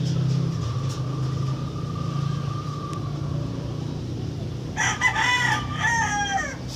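A rooster crows once, about five seconds in, over a steady low hum.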